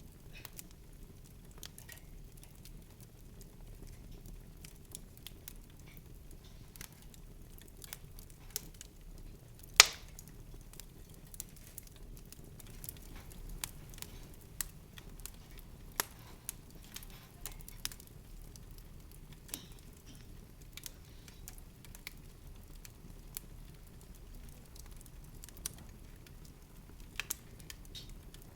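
Scattered small clicks and crackles at irregular intervals, with one sharper snap about ten seconds in, over a low steady hum.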